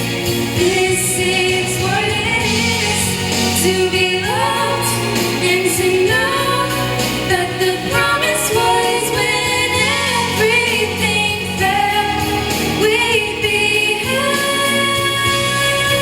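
Singers performing a slow worship ballad with instrumental accompaniment, the melody sung in long, sliding notes with vibrato.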